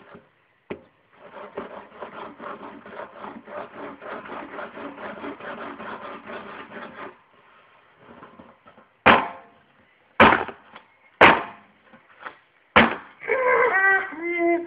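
Close handling noise: a few seconds of rapid rubbing and scraping, then four sharp knocks about a second apart. Near the end comes a high-pitched, whining voice.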